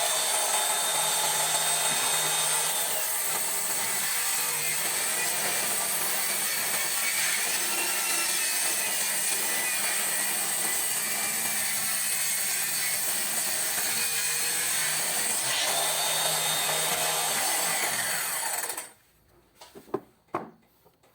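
Handheld power cutting machine fitted with a circular saw blade, cutting wood with a steady high-pitched whine. It stops suddenly near the end, followed by a few light knocks.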